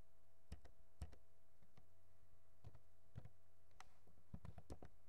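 Laptop keyboard keys being pressed: single clicks spaced about half a second apart, then a quick run of several keystrokes near the end.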